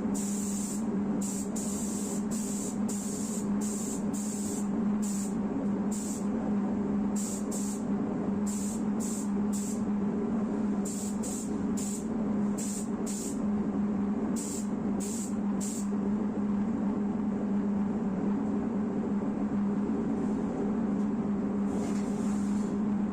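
Compressed air hissing from a pneumatic gun in many short, irregular trigger bursts, then one longer burst near the end, over a steady low hum.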